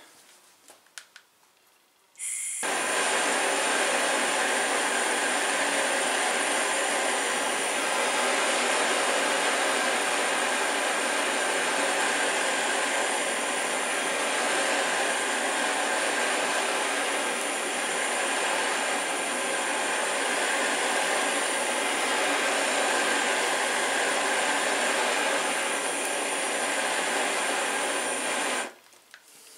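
Handheld gas blowtorch flame hissing steadily as it heats the top of a steel propane bottle. It starts suddenly about two and a half seconds in and cuts off suddenly near the end.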